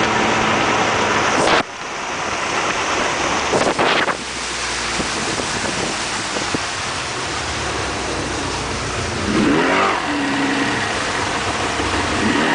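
Mercury 100 outboard motor running a speedboat at speed, under a heavy rush of wind and water from the wake. The loudness drops suddenly about one and a half seconds in.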